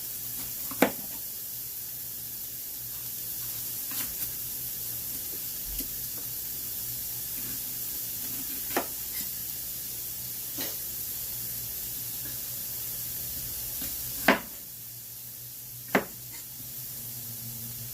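Vegetables sizzling as they fry in a pan, with a steady hiss and a few sharp clicks of a utensil against the pan while they are stirred. The sizzle gets a little quieter after a louder knock near the end.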